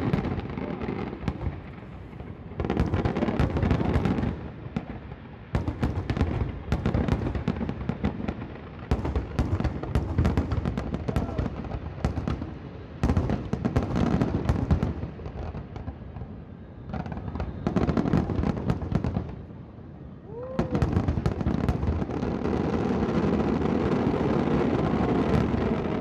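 Fireworks display: volleys of bangs and crackling bursts, separated by brief lulls, merging about 21 seconds in into a continuous dense barrage.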